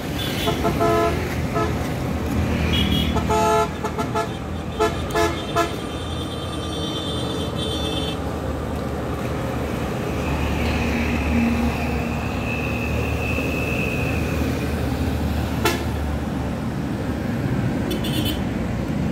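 Road traffic: vehicle horns toot several short times in the first six seconds over a steady rumble of engines, and the rumble carries on after the horns stop.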